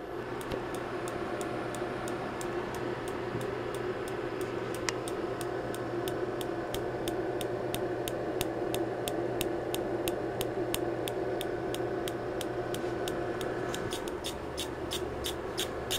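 Spark gap of a glass-windowed spark plug in a transient generator, snapping at an even rate of about three sparks a second over a steady electrical hum. The snaps grow louder near the end.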